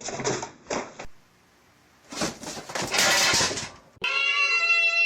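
A cat meowing in short calls. About four seconds in, a steady held tone with several even pitches starts and keeps going.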